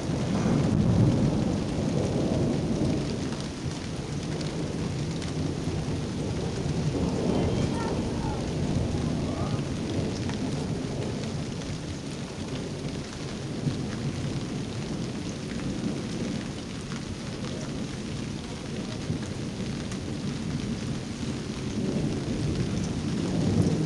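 Thunder rumbling over steady rain. The rumble swells in the first couple of seconds and again around seven seconds in.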